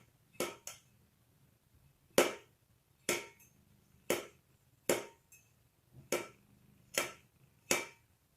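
A hungry cat banging its food bowl against the floor to demand food: about nine sharp knocks, roughly one a second, each with a brief ring.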